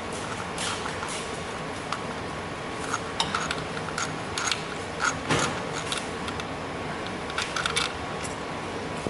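Scattered metal clicks and clinks of a socket wrench working on the ignition coil hold-down bolts of a Ford Focus ST engine. The clinks come in small clusters, over a steady background hum.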